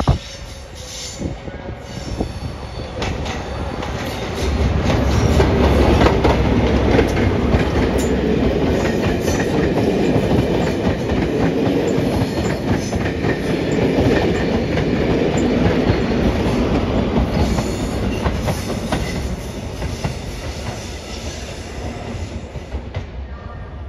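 Model train running past on the layout: wheels clicking over the track with a rumble that builds about four seconds in and fades toward the end.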